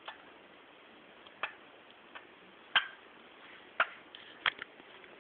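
Pet hamster in its cage making short, sharp clicks, about six of them at irregular intervals, as it protests at being shut in.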